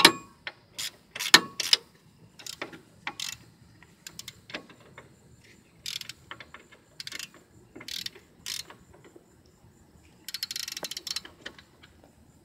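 Half-inch socket ratchet clicking in short strokes as it tightens a brake caliper bracket bolt, with a fast run of clicks about ten seconds in.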